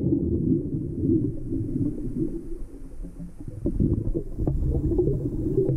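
Muffled underwater rumble picked up by a GoPro inside its waterproof housing during a scuba dive, with a few soft knocks about three to five seconds in.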